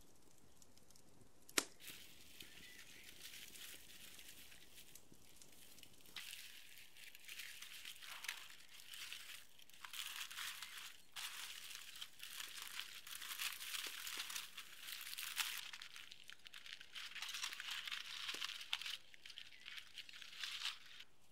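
Aluminium foil crinkling and rustling as hands peel open a foil packet, coming in fits and starts and growing louder after the first few seconds. A single sharp click sounds shortly after the start.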